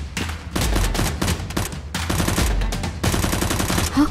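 Rapid automatic gunfire, added as a sound effect: several long bursts of fast shots with short breaks between them.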